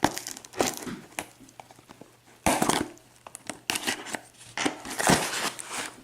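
Packaging crinkling and tearing as a mailed box is unpacked: a run of irregular rustles, with louder bursts about two and a half seconds in and again near the end.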